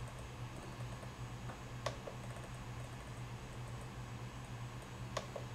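A few sharp clicks, the loudest about two seconds in and again near the end, with fainter small ticks, from buttons and the scroll wheel of a RadioMaster TX16S radio transmitter being worked through its menus, over a steady low hum.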